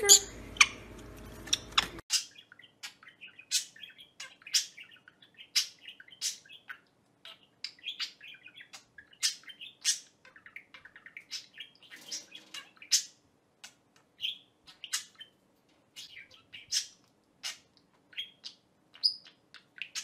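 Budgerigar chirping: a run of short, sharp, high chirps, irregular at about one or two a second, over soft twittering chatter.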